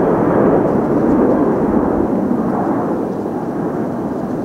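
Four jet engines of a Japan Airlines Boeing 747 at takeoff thrust as it climbs away: a loud, rough, continuous roar that eases slightly in the second half.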